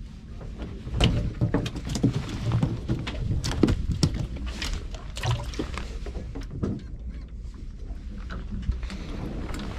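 Water sloshing and knocking around a submerged camera, with many irregular clicks and knocks over a low steady rumble.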